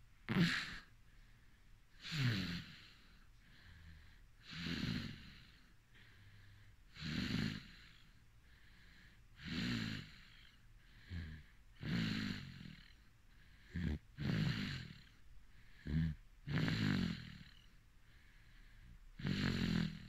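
A sleeping person snoring: a rough snore with each breath, about every two and a half seconds, with short snorts between some breaths in the second half.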